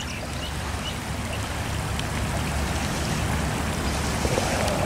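Floodwater running across a street, a steady rushing of flowing water.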